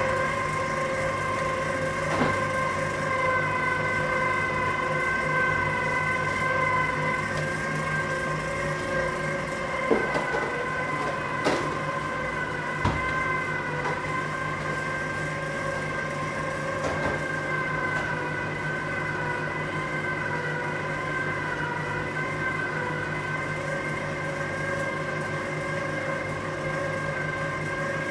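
Countertop electric pasta machine running with a steady motor whine and hum while a sheet of pasta dough is fed through its rollers. A few light knocks come about midway.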